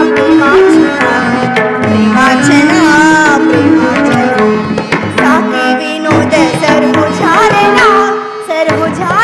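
Instrumental interlude of Indian classical-style theatre music: an ornamented melodic line gliding between notes over steady hand-drum rhythm.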